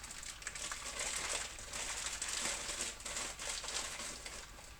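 Plastic bag of chocolate chips crinkling as it is handled, in several crackly bursts.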